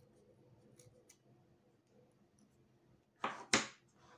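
Scissors cutting through a strand of jute rope: two short cuts close together about three seconds in, with a few faint ticks before them.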